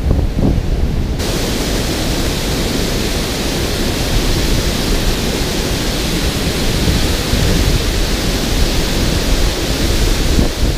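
Water pouring over a concrete dam spillway, a steady loud rush, with wind buffeting the microphone. About a second in the rush suddenly gets much brighter and fuller and then holds steady.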